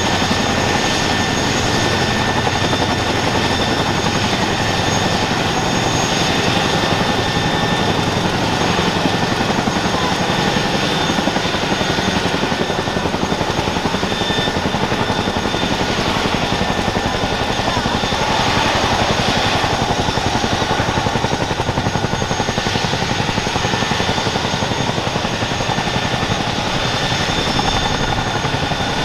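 Boeing CH-47F Chinook tandem-rotor helicopter running on the ground with its rotors turning: a steady, loud rush of rotor and turbine noise, with a constant high turbine whine on top.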